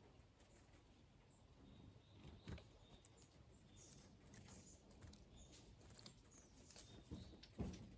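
Small wild birds bathing in a shallow garden bath: faint, with scattered soft splashes and taps, the loudest near the end, and short high chirps.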